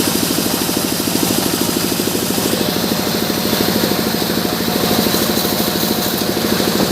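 Sawmill engine running steadily with a rapid, even chugging.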